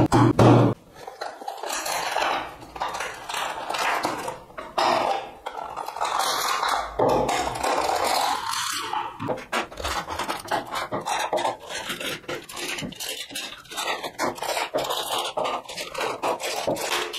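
Gloved hands unpacking boxed electrolytic capacitors: clear plastic clamshell packaging crinkling and rustling, cardboard boxes scraping, and many light knocks as the capacitors are set down on a wooden table. A loud bump comes right at the start.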